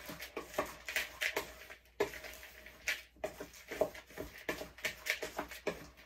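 A spoon stirring dry oats, sunflower seeds, chocolate chips and ground flaxseed in a plastic mixing bowl: quick, irregular scrapes and rustles, several a second.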